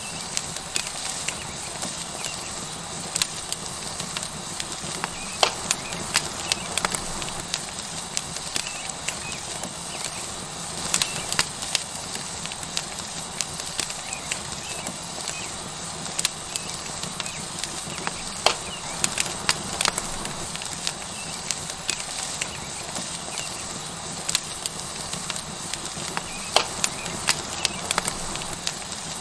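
Wood fire crackling with frequent irregular sharp pops, over the steady sizzle of a tomahawk steak searing on a hot rock.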